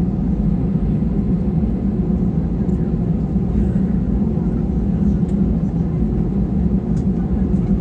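Steady rumble and low hum inside the cabin of an Airbus A320 on the ground, with a few faint ticks.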